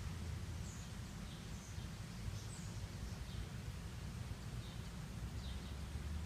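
Low steady background rumble with about eight faint, short high chirps from small birds scattered through it, each sliding downward in pitch.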